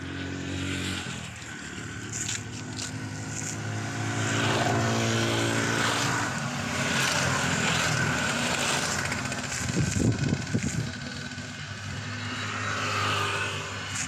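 Engines of motor vehicles passing on the road, the pitch sliding as one goes by about four to six seconds in, with a louder low rumble around ten seconds in.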